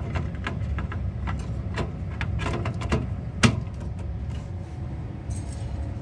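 Clicks and knocks of a circuit card being slid and seated into the card cage of a Simplex 2001 fire alarm panel, with one sharper knock about three and a half seconds in, over a low steady hum.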